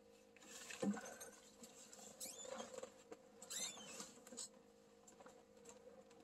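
Faint rustling and swishing of a Dave Genz Legacy Series Scout flip-over ice shelter's nylon fabric as it is pulled up over its frame, with a couple of short high squeaks near the middle.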